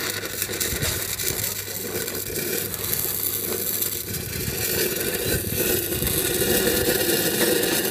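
Electric welding arc laying a tack weld on the joint of a steel pipe reducer: a steady, loud hiss of the arc, held unbroken.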